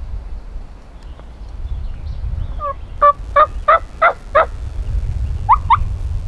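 Wild turkey gobbler gobbling once: a rapid burst of about six notes lasting under two seconds, followed about a second later by two short rising notes.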